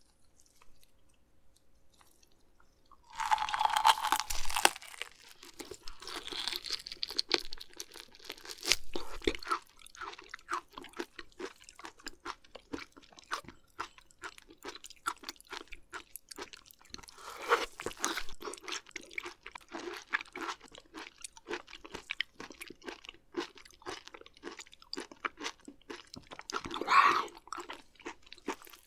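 Close-miked mouth sounds of someone eating raw beef liver and beef omasum (cheonyeop): a steady run of small chewing clicks and crunches. Louder bites come about three seconds in and again around seventeen and twenty-seven seconds.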